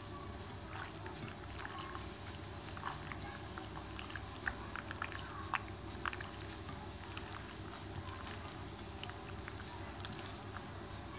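Faint wet squishing and small scattered clicks of hands mixing oiled, seasoned raw beef slices in a glass bowl.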